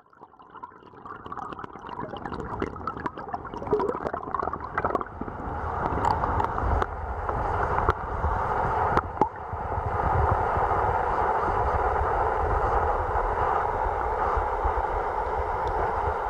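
Water rushing and gurgling past a sea kayak's hull, heard from under the surface. It fades in with crackling bubbly clicks, then settles into a steady muffled rush from about five seconds in.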